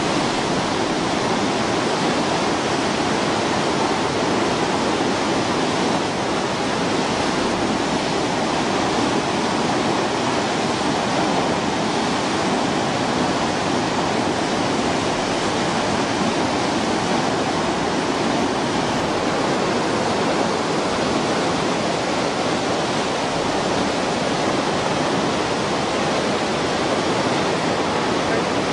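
The Narmada river in flood, fast turbulent water rushing in a loud, steady, unbroken wash of noise.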